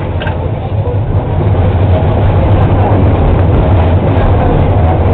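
Tram running along its rails, heard from inside the car: a loud, steady low rumble that grows louder about two seconds in.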